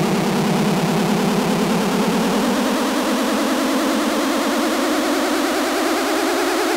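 Electronic music soundtrack: a noisy synthesizer build-up that rises slowly in pitch, leading into a dance track.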